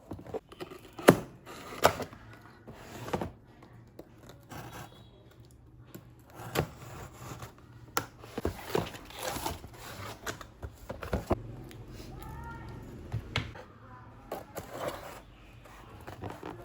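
Scattered clicks and knocks of small objects being handled, the sharpest about one and two seconds in, over a low steady hum, with a faint voice briefly about three-quarters of the way through.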